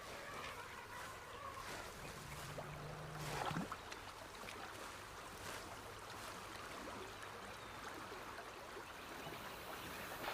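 Faint outdoor ambience: a steady soft rushing hiss with scattered light rustles and clicks. A brief low hum comes about two and a half seconds in and ends in a short rising sweep near three and a half seconds.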